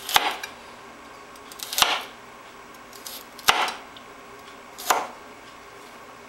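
Kitchen knife chopping through vegetables onto a cutting board, four slow single strokes about a second and a half apart.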